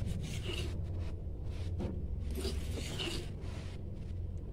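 Faint scrapes of a spoon scooping salt and stirring in a pot of broth, a few light strokes over a steady low hum.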